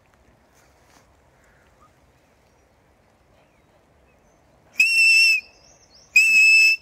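Dog-training whistle blown twice near the end: two loud, steady, high single-pitched blasts, each a little over half a second long and about a second and a half apart, signalling to the dog that has been sent ahead.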